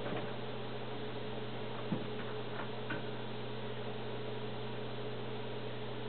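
Steady electrical mains hum over a hiss, with a few faint clicks and a small knock about two seconds in, and another about three seconds in, as the canister filter's plastic hoses and fittings are handled.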